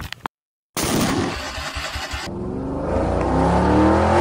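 After a brief gap, a van engine runs and then revs up as the van drives off, its pitch rising steadily over the last second or so.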